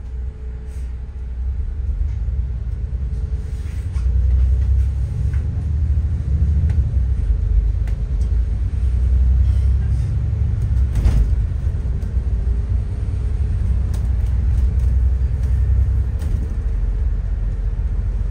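City bus driving, heard from inside the cabin: a steady low rumble of engine and road noise that grows louder a couple of seconds in and again about four seconds in, with a single knock about eleven seconds in.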